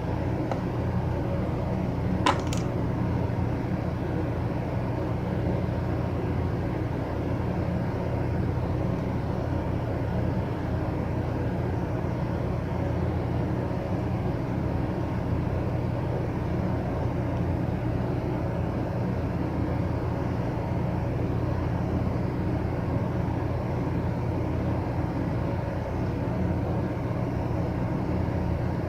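Steady low rumbling background noise, with one brief sharp click about two seconds in.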